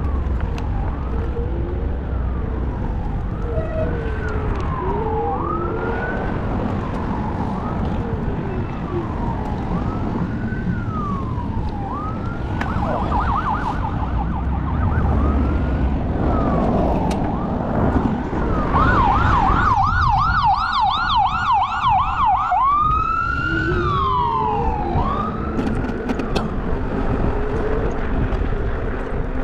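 Emergency vehicle siren sounding over traffic rumble, cycling in slow rising-and-falling wails, switching twice to a fast yelp (about twelve and about nineteen seconds in) before going back to the wail.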